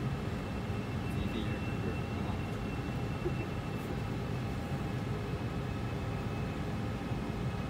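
Steady cockpit noise of an Airbus A320 flight simulator in flight: simulated engine and airflow rumble, with a faint steady high whine.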